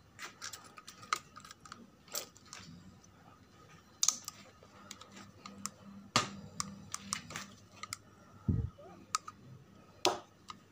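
Irregular sharp clicks and knocks, about one every second or two, with a short low thump about eight and a half seconds in.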